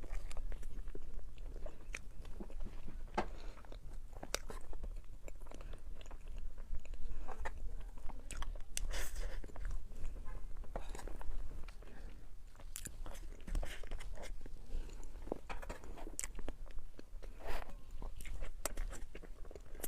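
A person biting into and chewing a crunchy chocolate dessert, with irregular crisp crunches throughout.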